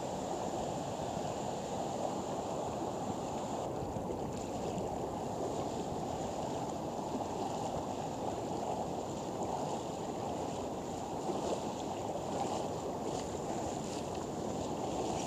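Steady rushing of ocean surf and river water, with wind on the microphone. Faint light splashing of legs wading through the shallow water shows in the second half.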